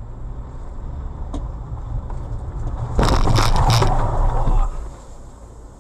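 Low engine and road hum inside a car cabin. About three seconds in comes a sudden loud jolt with clattering and rattling that lasts under two seconds, then the hum goes on.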